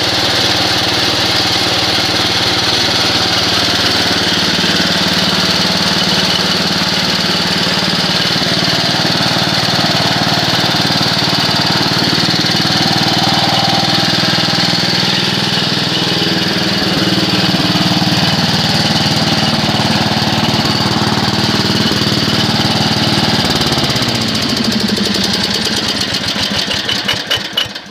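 12-horsepower Briggs & Stratton single-cylinder engine on a Simplicity Sovereign 3012V garden tractor, running steadily at speed. About 24 seconds in it is shut off, and it winds down in pitch to a stop near the end.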